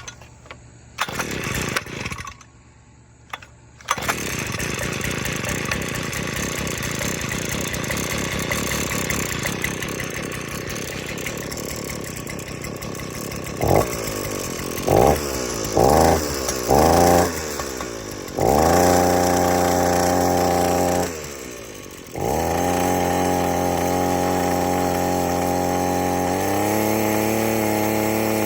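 Earthquake 33cc two-stroke mini tiller engine cold-started at half choke. After a few short bursts it catches about four seconds in and runs steadily. Around the middle it is revved in four short bursts, then held at high speed in long stretches, with a brief drop near 21 to 22 s and a step up in pitch a few seconds before the end.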